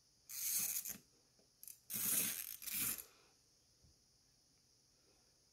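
Tailor's chalk drawn along a ruler's edge across eyelet fabric, marking a dart line: three short scratchy strokes, the last two back to back.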